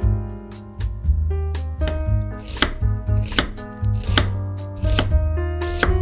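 A chef's knife slicing a red onion thinly on a wooden cutting board, the blade knocking the board about twice a second, over background music.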